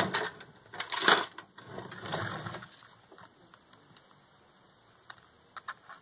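Handling noise from a small homemade RC car chassis being picked up, turned and set back down on a cutting mat: rattling and knocks, the loudest about a second in, dying away after about three seconds, then a few light clicks near the end.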